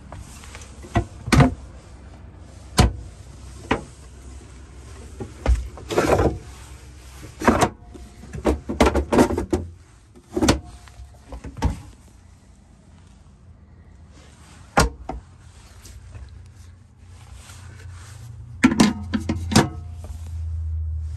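Wooden cabinet doors and drawers of a camper's kitchen unit being opened and shut by hand: a series of knocks and clacks, busiest in the middle and again near the end, over a low steady hum.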